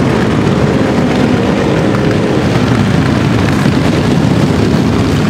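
A long stream of big cruiser motorcycles, many of them Harley-Davidson V-twins, riding past at low speed. The many exhausts overlap into one loud, steady rumble.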